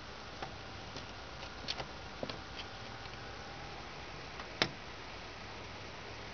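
A rat's claws scraping and tapping on a wooden window sill and frame as it climbs: a few scattered light ticks, the loudest a sharp tap about four and a half seconds in.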